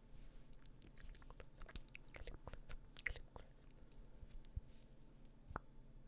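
Quiet close-miked ASMR mouth sounds: irregular clicks and smacks of the lips and tongue, with one sharper click about three seconds in.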